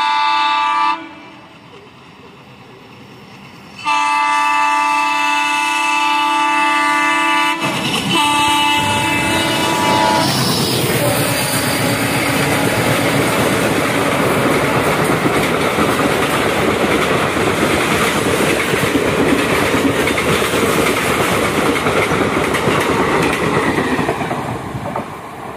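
Indian Railways WDG3A Alco diesel locomotive approaching at speed and sounding its horn: a long held chord, a pause, then another long blast. It then thunders past, and its passenger coaches follow with a steady clatter of wheels over the rail joints that fades near the end.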